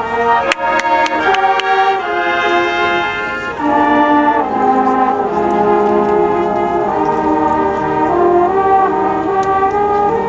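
High school marching band playing a brass passage of held, shifting chords, with a quick run of sharp percussion hits between about half a second and two seconds in.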